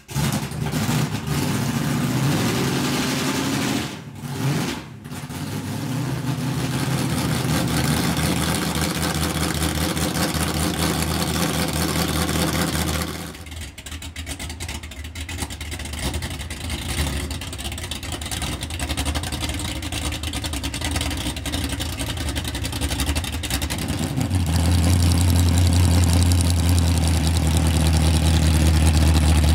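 An engine running steadily, dipping briefly twice about four to five seconds in, with its note changing about halfway through. A deeper, louder hum sets in near the end.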